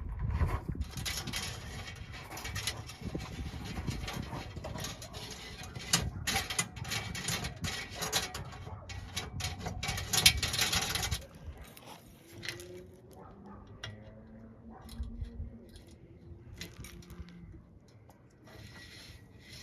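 Scraping, rustling and clicking of a trailer tail-light wiring harness being pulled through the trailer frame. It stops about eleven seconds in, leaving quieter scattered handling noises.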